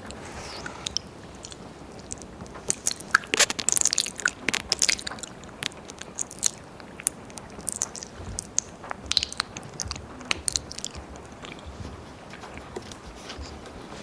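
Wet mouth sounds close on a binaural ear microphone: ear licking and ear eating, tongue clicks and lip smacks in irregular clusters, busiest a few seconds in and again past the middle.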